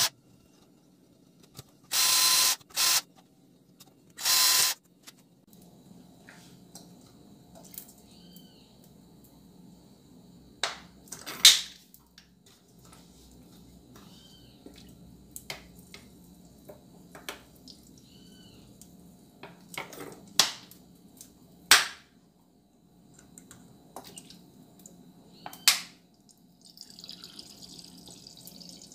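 An electric drill runs in three short bursts over the first five seconds. Then come scattered clicks and knocks over a faint steady hum, and near the end water is poured from a plastic bottle.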